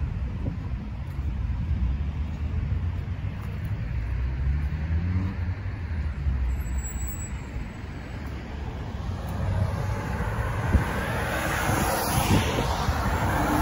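Road traffic on a multi-lane road: a car engine rises in pitch as it speeds up a few seconds in, and the tyre noise of approaching cars swells near the end.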